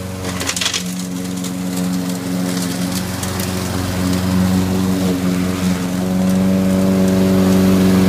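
Gas walk-behind lawn mower engine running steadily on a homemade remote-controlled robot mower, getting louder as it comes closer. There is a brief crunch about half a second in.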